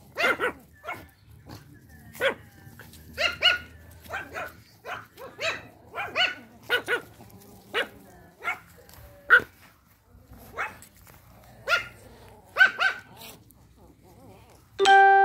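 Pomeranian dogs yapping: short, high-pitched barks, some in quick pairs, repeated every half second to a second. Near the end a steady held musical note starts.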